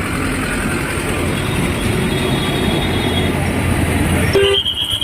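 Steady road traffic noise with a motor vehicle running close by. About four and a half seconds in, the noise cuts off abruptly and a high steady tone begins.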